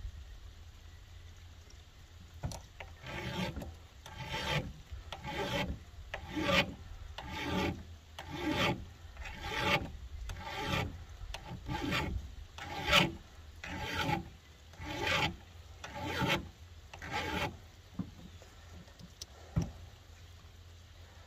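Flat file rasping across the steel rakers (depth gauges) of a chainsaw chain to lower the raker depth: about fourteen even strokes, roughly one a second. A single sharp click follows near the end.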